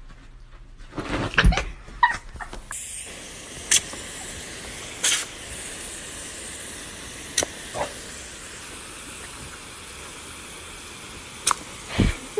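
A garden hose spray nozzle shooting a jet of water, a steady hiss that starts about three seconds in, after a few short loud knocks. Several short sharp sounds cut through the hiss.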